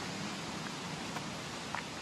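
Radovna river water rushing through the gorge, a steady, even roar of noise. A few short faint chirps come through it in the second half.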